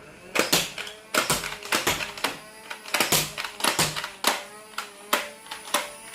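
A quick irregular series of sharp clicks and knocks, two to four a second, over faint background music.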